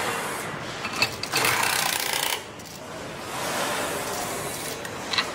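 A handheld power screwdriver runs for about a second, fastening a cab's side mirror, with sharp clicks of tools on metal before it and again near the end.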